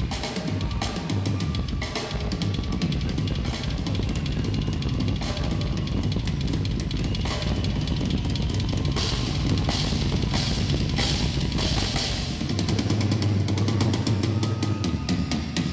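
Drum kit solo played live: fast, dense strokes across snare, toms and bass drum, with cymbal crashes about two-thirds of the way in and heavy, rapid low drumming near the end.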